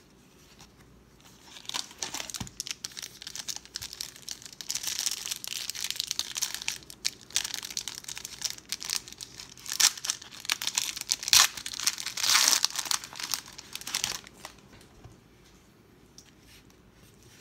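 A 1992 Pro Set football card pack's foil wrapper being torn open and crinkled by hand: a long run of irregular crinkling and tearing, loudest a little past the middle, stopping a few seconds before the end.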